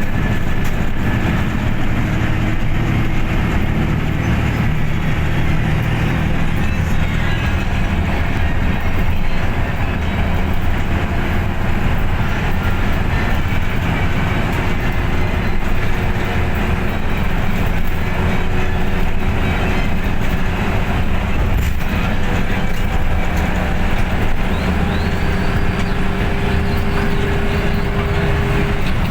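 Heavy truck on the move: a steady, loud engine and road rumble, with the engine note drifting slightly in pitch.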